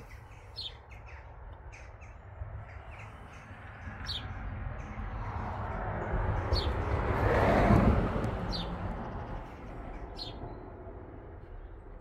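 Birds chirping outdoors, short high chirps every second or two. A broad rushing noise swells up about halfway through, is loudest around eight seconds in, then fades away.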